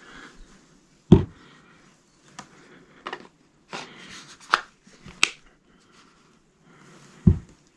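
Plastic clicks and knocks of an 18 V Bosch battery pack being slid onto a Bosch AdvancedGlue 18V cordless glue gun and the tool handled on a wooden bench. A heavy thump about a second in and another near the end, with several sharp clicks in between.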